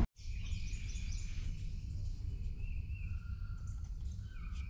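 Birds calling in the morning: several held, whistled notes and short chirps over a low, steady rumble.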